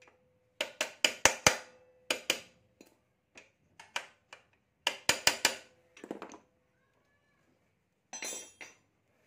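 Hammer tapping a steel rod used as a drift, light metallic clinks in small irregular groups, gently driving a kick-starter part into its seat in a Honda Beat scooter's CVT case. The taps stop after about six seconds, and a short handling noise follows near the end.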